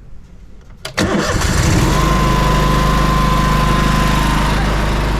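Drain jetter's engine started on the key, catching about a second in and then running steadily, with a thin whine over it for a couple of seconds.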